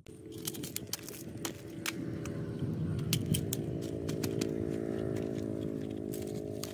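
A knife blade being forced down into a charred bamboo tube to split it, with repeated sharp cracks and snaps from the bamboo. A steady low hum runs underneath throughout.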